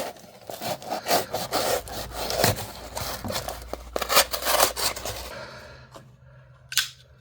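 Pocketknife blade slicing repeatedly through material in a run of rasping, scraping strokes, which fade after about five seconds; a single sharp click follows near the end.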